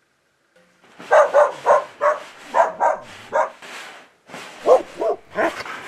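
A dog barking: a quick run of about ten short barks that starts about a second in, with a brief pause a little after the fourth second.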